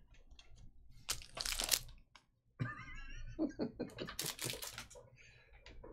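Plastic wrapping crinkling in two short bursts, about a second in and again about four seconds in, with light clicks of trading cards being handled.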